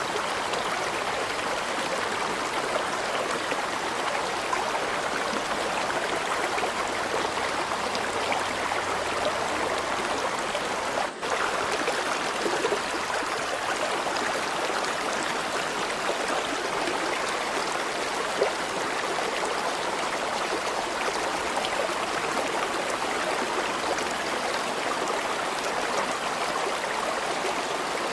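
River water flowing over stones in a steady, even rush, with a momentary dip in level about eleven seconds in.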